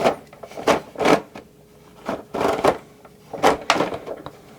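Hard plastic parts of a 1988 G.I. Joe Rolling Thunder toy vehicle clicking and knocking as a sliding piece is snapped in and worked back and forth: about six short sharp clicks, loosely in pairs.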